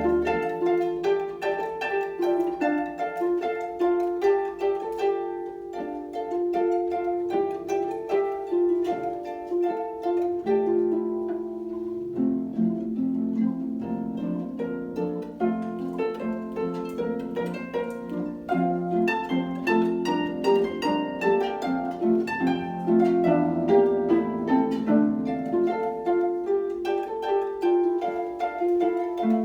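Two concert harps playing a duet, many plucked notes ringing over one another in a flowing melody with accompaniment.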